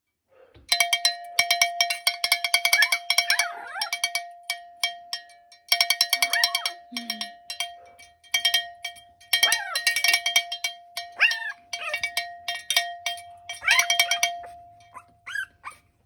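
A ringing metal bell shaken hard in several rapid rattling bursts, used as a loud noise to desensitise puppies. Young bulldog puppies whimper briefly in between.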